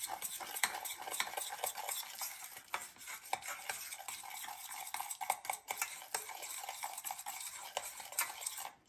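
A utensil beating egg yolks, sugar and cornflour in a stainless steel saucepan: a steady, rapid scraping and clicking against the pan.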